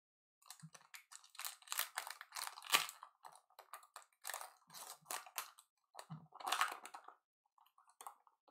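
Foil trading-card pack wrapper crinkling and tearing as a Topps Stadium Club Chrome pack is ripped open by hand: a run of crackly rustles, busiest about one to three seconds in and again around six to seven seconds.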